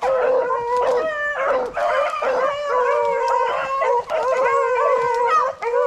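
A pack of beagles baying in full cry on a swamp rabbit's trail, several dogs' howling voices overlapping without a break.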